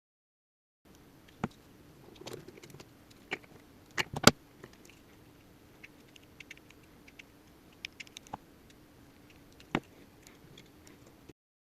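Scattered light clicks and taps from handling small plastic car parts and wiring, with a sharper pair of clicks about four seconds in, over a faint steady hum.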